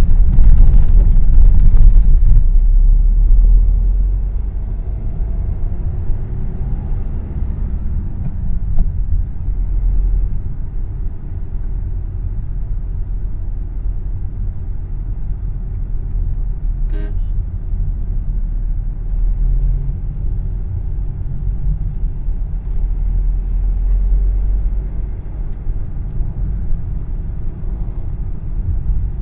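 Steady low rumble of a motor vehicle on the road, loudest for the first few seconds, with a brief vehicle horn toot about seventeen seconds in.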